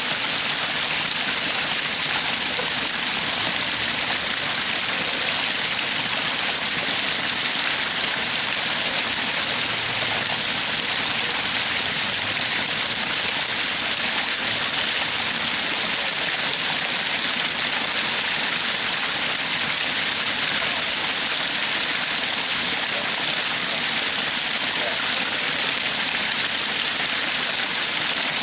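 Garden waterfall falling into a pond: a steady, unbroken rush of splashing water.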